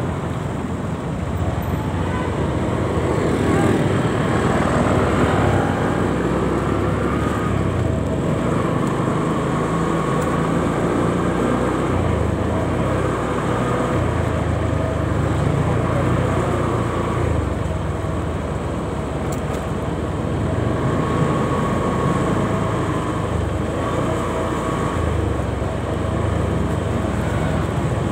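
Steady traffic noise heard from a moving motorcycle: its own engine and tyre noise with other motorcycles and cars running alongside in dense evening traffic.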